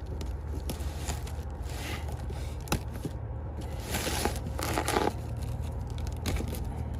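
Rustling and crinkling of packaging being handled, in several short bursts, with a sharp click near the middle, over a steady low hum.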